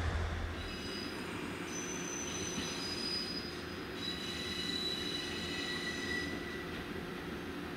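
A KiHa 110 series diesel railcar moves slowly out of a siding, its wheels squealing in several thin, high, steady tones over a low running rumble. A loud low hum breaks off under a second in.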